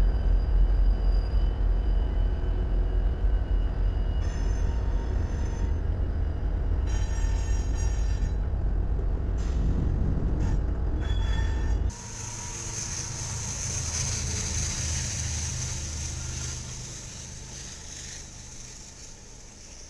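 Freight train diesel locomotives rolling past with a heavy, steady rumble, which cuts off suddenly about twelve seconds in. After that a lighter sound of a train passing takes over, carrying a strong high hiss of wheels on the rails that fades away near the end.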